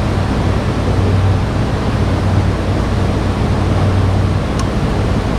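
Steady rushing noise with a low hum, and a faint light click about four and a half seconds in.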